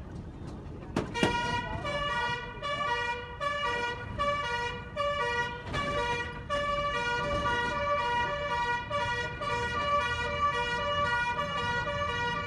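An electronic two-tone vehicle siren, switching back and forth between two close notes several times a second. It starts about a second in, over low traffic rumble.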